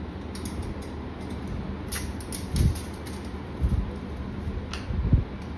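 Light metallic clicks and dull thumps as stainless steel dish rack parts are handled and fitted together by hand, over a low steady background hum.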